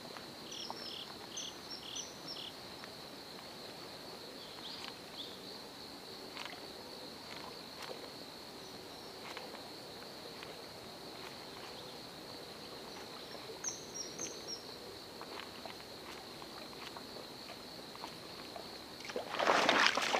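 Calm lake ambience with a steady high whine, two short runs of bird chirps and faint scattered ticks. About a second before the end comes a sudden loud splash and rush of water as a fish strikes a Heddon Spook topwater lure.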